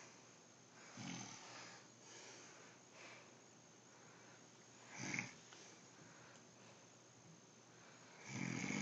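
A man snoring in his sleep without his CPAP mask on: three snores about four seconds apart, the middle one about five seconds in the loudest.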